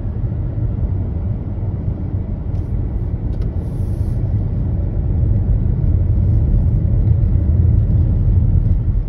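Steady low rumble of a car driving, heard from inside the cabin: road and engine noise, growing a little louder about five seconds in.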